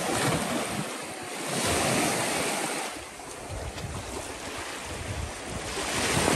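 Small lake waves washing onto a sandy shore, with wind buffeting the microphone; the wash swells about two seconds in.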